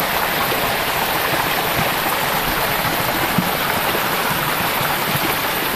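Shallow creek water running steadily, an even rushing sound, with one small click about three and a half seconds in.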